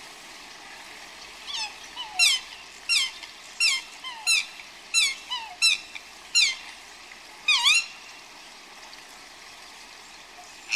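Swan calls: a series of about ten short, squeaky calls, each a quick falling note, coming roughly one every three-quarters of a second. The last call dips and then rises again. Faint steady background from the calm water.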